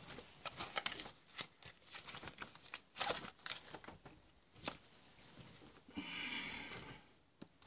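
Cardboard knife box being opened and unpacked: quiet scattered taps and rustles of the box and paper insert, and crinkling of plastic packaging, with a longer rustle about six seconds in.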